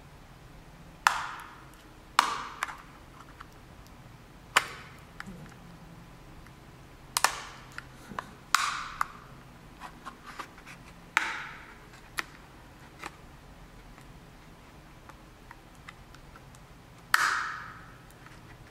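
Samsung Ativ S battery cover clicking and snapping as it is pried loose from its clips: about seven sharp clicks at irregular intervals, each with a brief ringing tail, plus a few fainter ticks.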